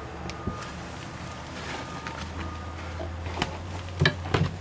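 Soft knocks and clicks of footsteps and handling going down carpeted wooden stairs into a boat cabin, a few together about four seconds in, over a low steady hum.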